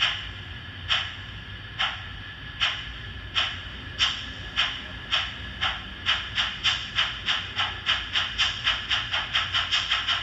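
Model steam locomotive's sound decoder playing steam exhaust chuffs through its small speaker, over a faint steady hiss. The chuffs start about one a second and come steadily faster, to about four or five a second near the end, as the locomotive is throttled up.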